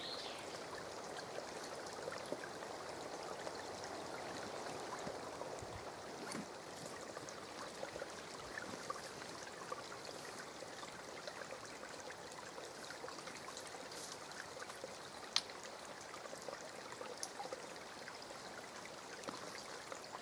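Small, shallow forest stream trickling over stones in a steady babble, with scattered light clicks and one sharper click about fifteen seconds in.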